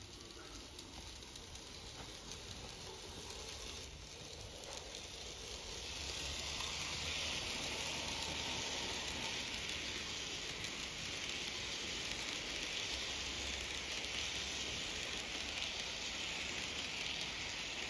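N-gauge model train, a Kato EF58 electric locomotive hauling old-style passenger coaches, rolling over the track: a steady, even hiss of wheels on rail with a low hum beneath. It grows louder over the first six seconds as the train nears, then holds.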